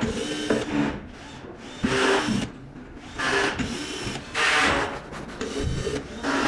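Electric screwdriver running in several short bursts, about half a second each, backing out the screws that hold a board inside a power module.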